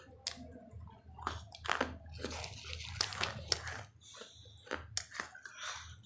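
Close-up crunching and chewing of shards of a baked clay pot (matki): about seven sharp, irregular crunches as the pieces are bitten, with softer grinding chews between them.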